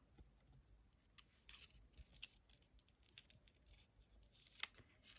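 Faint handling of die-cut card pieces: scattered small clicks and rustles of card stock, with one sharper click about four and a half seconds in.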